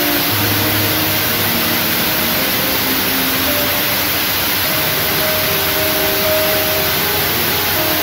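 Background music: soft held notes of changing pitch over a steady hiss.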